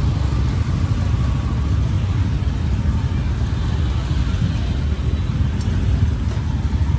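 Busy street ambience: a steady low rumble of traffic-like noise with faint voices mixed in, and one faint tick about five and a half seconds in.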